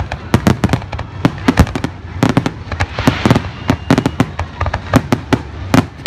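Aerial fireworks shells bursting in quick, irregular succession, several sharp bangs a second, with a brief hissing crackle about three seconds in.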